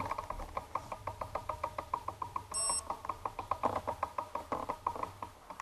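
Road bike's rear freewheel ticking, a fast even run of clicks at about seven or eight a second, as the bike is wheeled along without pedalling.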